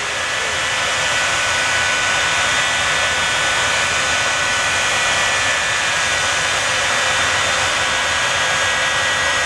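Shockwave semi truck's three jet engines idling while the truck stands still: a steady rushing hiss with a steady high whine running through it.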